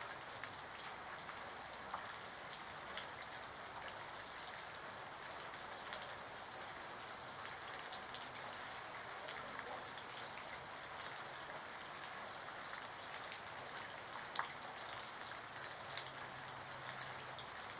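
Steady rain falling: an even hiss with scattered louder drips and ticks of drops striking nearby surfaces.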